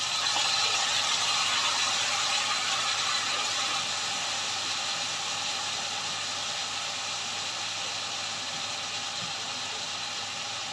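Sauce sizzling and crackling in a hot wok of frying chicken wings, loudest just after it hits the pan and then slowly dying down.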